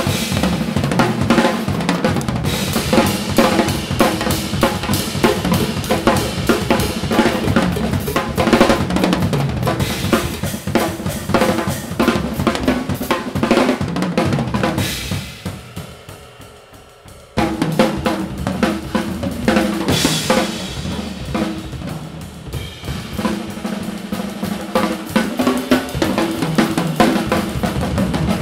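Two drum kits played together in an improvised duet: busy patterns on snare, toms, bass drum, hi-hat and cymbals. A little past halfway the playing dies away to a brief lull, then the drumming comes back in all at once.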